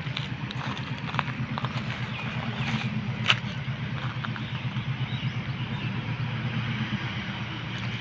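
WDP3A diesel locomotive's engine chugging under load as it pulls the express away, a steady rapid low throb. Scattered sharp clicks come over it, the loudest about three seconds in.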